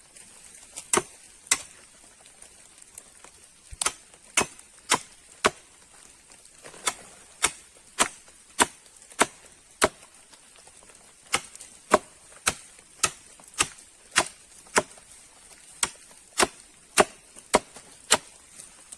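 Wood being chopped by hand: sharp blows about two a second, in runs of four to seven strokes with short pauses between them.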